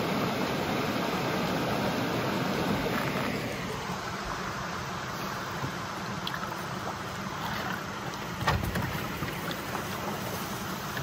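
Steady rush of water from a nearby waterfall, heard from a canoe, easing a little about three and a half seconds in. A single knock sounds about eight seconds in.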